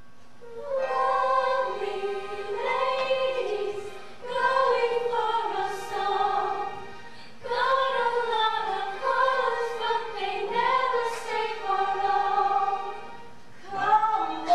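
Women's chorus singing together in a stage-musical number, in sung phrases of about three seconds with short breaks between them.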